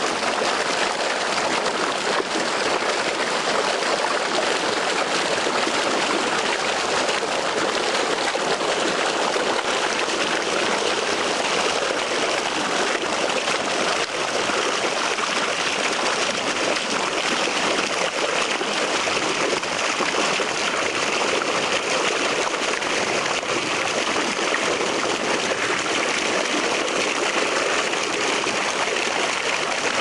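Steady rush and splash of Nile water flowing fast along a narrow stone-lined irrigation channel and spilling through a gap between stones.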